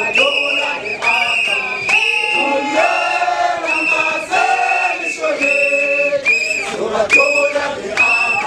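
Crowd of marchers singing and chanting together in call-and-response, with a high, steady-pitched tone sounding in short blasts over and over through the song.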